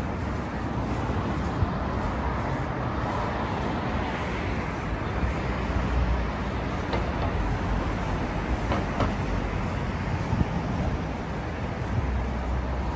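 City street traffic: a steady rumble of passing vehicles, swelling about halfway through and again near the end, with a few faint sharp clicks.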